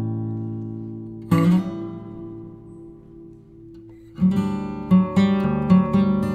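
Acoustic guitar music: a strummed chord rings and fades, another is struck about a second in and left to ring, then a livelier run of strums starts about four seconds in.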